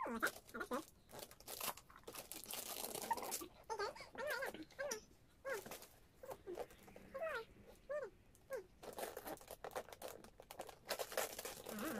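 Wrapping paper and tissue paper crinkling and tearing as a present is unwrapped, with a baby's short high-pitched babbling calls, several of them between about four and eight seconds in.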